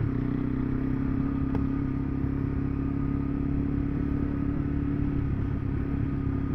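KTM 390 Adventure's single-cylinder engine running at a steady speed while riding, with a low rumble underneath.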